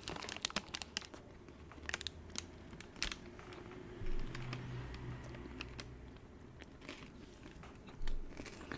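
Close-miked mouth sounds of someone chewing a peanut and dark chocolate protein bar: scattered sharp clicks and small crunches.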